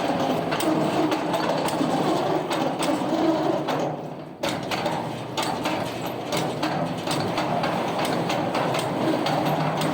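Heavy machinery running steadily with frequent metallic knocks and clanks; the noise dips briefly about four seconds in, then returns abruptly.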